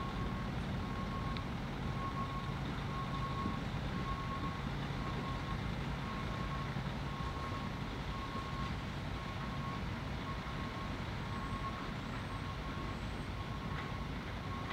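Backup alarm of a high-rail truck reversing: a single-pitched beep repeating about once a second, each beep nearly a second long. A diesel engine runs low underneath and eases off about halfway through.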